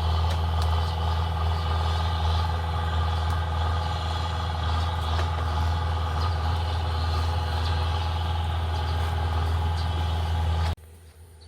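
An engine running steadily with a deep, even hum, cut off abruptly near the end.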